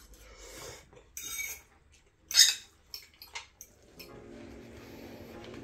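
A metal fork clinking and scraping against a ceramic bowl of noodles: a few short, sharp sounds over the first four seconds, the loudest about two and a half seconds in. After that, soft background music with held notes comes in.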